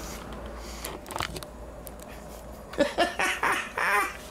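A few soft handling knocks, then laughter in short bursts starting about three seconds in.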